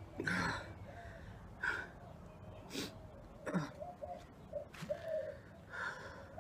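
A man gagging and gasping, in about five short heaving bursts, his throat reacting to swallowing raw sardine.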